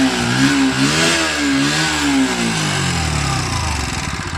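Bajaj Pulsar NS 125's single-cylinder engine being revved in quick blips, then falling back toward idle near the end. It makes a bad mechanical noise that the mechanic likens to a fully loose timing chain.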